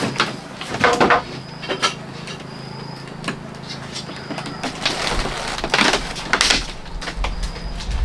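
Scattered knocks and rustles of handling, with a few brief high chirps and a low rumble starting about five seconds in.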